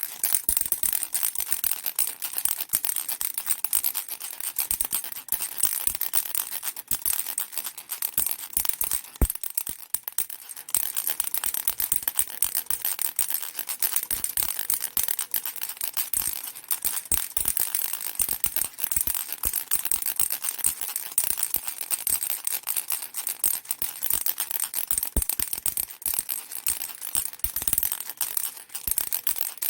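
Baby rattle shaken without pause: a fast, dense clatter of small clicks, bright and high-pitched.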